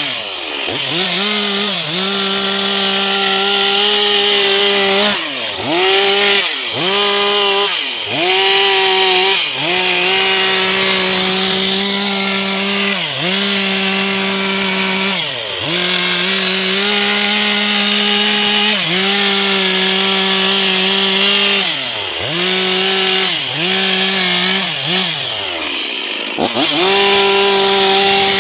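Two-stroke chainsaw running at high revs while cutting teak wood, its engine pitch dropping sharply and climbing back again and again as the throttle eases and opens.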